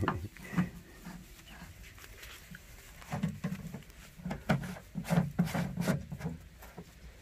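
White baekgu puppies moving about in grass and dry straw close to the microphone: scattered rustles and short soft knocks, busiest about three seconds in and again from four and a half to six seconds.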